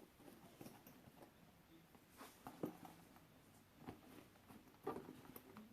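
Near silence with a few faint brief rustles and taps, from handling the backpack.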